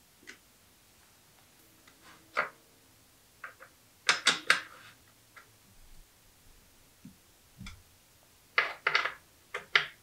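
Clicks and scrapes of a metal hand tool working on a bicycle flat pedal and crank arm as the pedal is fitted: scattered single clicks, with two quick clusters of sharp clinks about four seconds in and near the end.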